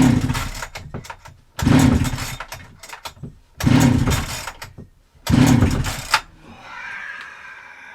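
Husqvarna 365 X-Torq chainsaw pull-started four times in a row, each pull about a second long, the engine turning over without firing. It is a saw whose plug gives no spark.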